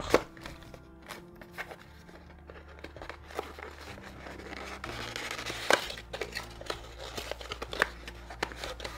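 Background music with steady held tones under the handling of a cardboard watch box: scrapes, taps and a few sharp knocks as the inner box is slid out of its printed sleeve and its lid opened. The knocks are loudest near the start and about halfway through.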